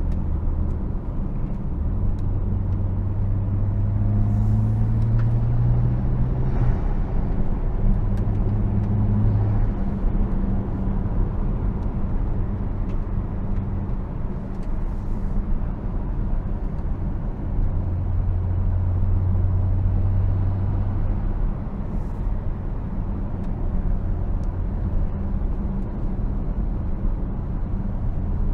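Car interior on the move: the Saab 9-3 Turbo X's turbocharged V6 hums under road and studded winter-tyre noise. The engine note rises in pitch for a few seconds early on, drops away, and comes back steady later. The ride sounds settled, on a freshly replaced propshaft that the driver finds very stable.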